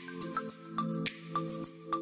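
Background music: sustained low chords over a steady beat of light, ticking percussion.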